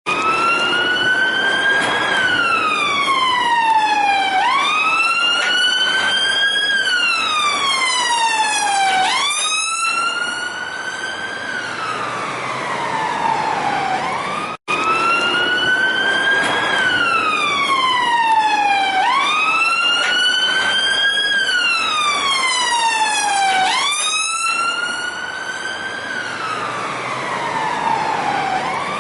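Siren wailing: a tone that climbs for about two seconds, then slides down, and repeats about every four and a half seconds. There is a momentary break about halfway through.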